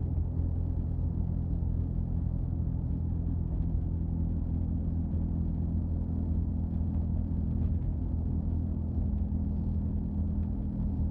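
Steady low hum from a 2005 Subaru Outback, the humming noise that is the car's complaint, holding an even pitch throughout.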